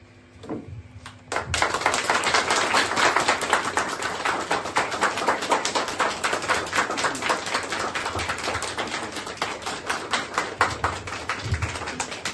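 Audience applauding, starting suddenly just over a second in and keeping up steadily.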